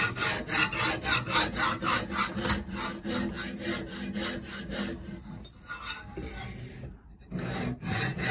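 Coarse sharpening stone of a guided knife sharpener rubbed back and forth along a steel knife edge in quick strokes, about four a second, grinding a thick secondary bevel until a burr forms. The strokes ease off a little past the middle and pick up again near the end.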